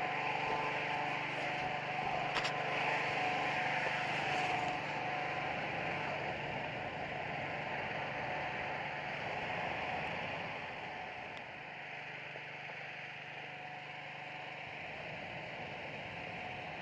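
Hot air balloon inflator fan running steadily, a motor hum under an even rush of air, somewhat quieter from about ten seconds in, with a couple of faint clicks near the start.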